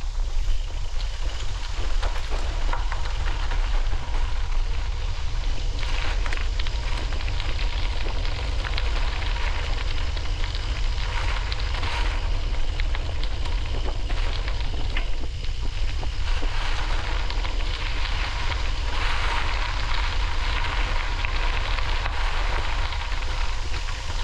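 Wind buffeting the microphone as a steady low rumble, over a continuous crackling hiss that swells several times.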